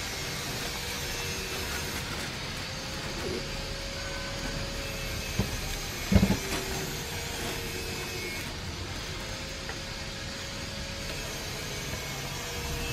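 Steady hum of a distant motor with a slowly wavering pitch, and a few short knocks, the loudest about six seconds in.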